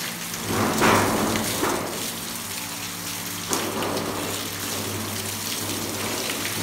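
Water jetting from a hose onto civets, wire-mesh cages and tiled cage floors: a steady spattering hiss that swells about a second in and again past the middle, over a steady low hum.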